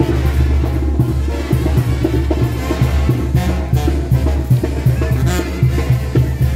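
Music with drums keeping a steady beat over a heavy bass line.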